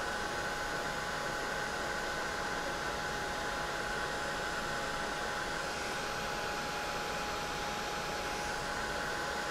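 Ranger Heat It craft heat gun running steadily: a hiss of blown air with a steady whine, melting embossing powder on a small metal gear.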